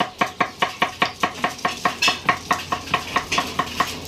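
A kitchen knife chopping vegetables on a wooden cutting board in quick, even strokes, about five knocks a second, each with a short hollow ring; the chopping stops just before the end.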